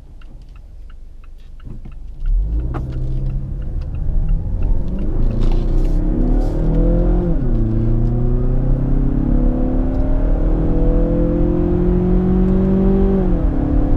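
2017 Mazda 6's 2.5-litre four-cylinder engine heard from inside the cabin, pulling hard under throttle after about two seconds of quieter running. The engine note climbs, drops sharply at an upshift about seven seconds in, then climbs again more slowly and drops at a second upshift near the end.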